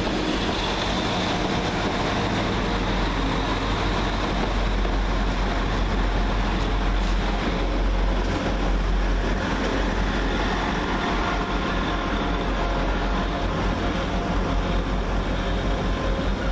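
Northern Class 195 diesel multiple unit pulling out of the station, its underfloor diesel engines under power with a steady low rumble.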